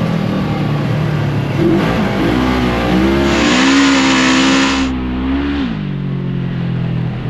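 2024 Polaris RZR XP 1000's 1000 cc parallel-twin engine through its stock exhaust, driven hard under throttle. The engine note climbs about two seconds in, holds high for a few seconds, then drops near the end.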